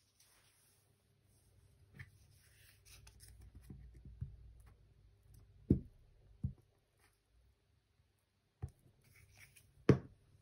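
Faint rubbing and rustling of an ink blending tool's foam pad and paper, followed by four short taps of craft tools set down and picked up on a tabletop. The last tap, near the end, is the loudest.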